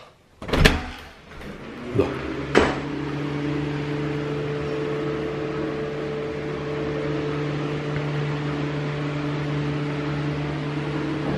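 A door latch clicks as the bathroom door is opened, then a couple of sharp clicks, and a steady electric hum with a low tone starts and keeps going.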